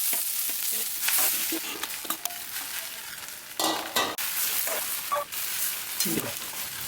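Idli pieces coated in idli podi and ghee being stirred into a sizzling onion-and-mustard-seed tempering in a kadai, with a steady sizzle and a spatula knocking against the pan several times.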